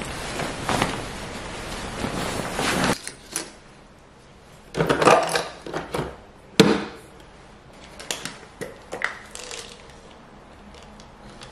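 Cotton shirt fabric rustling steadily as it is put on and buttoned, cut off abruptly. Then a few light knocks and clicks from small objects being handled at a countertop next to a capsule coffee machine, with one sharp click about two-thirds of the way in.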